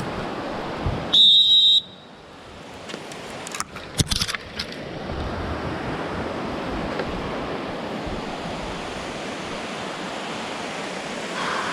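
Whitewater rapids rushing steadily. About a second in there is a brief shrill whistle-like tone, and a few sharp knocks follow around four seconds in.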